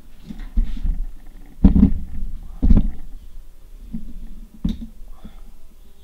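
Handling noise from hands working a bird skin at a workbench: three dull low thumps with rubbing between them, about a second apart, then a sharp click near the end.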